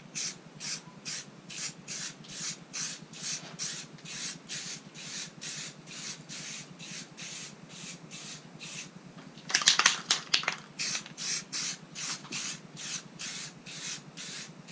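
Back-and-forth rubbing strokes by hand on a metal wiper arm, a hissy scrape about three times a second. There is a louder run of strokes about ten seconds in.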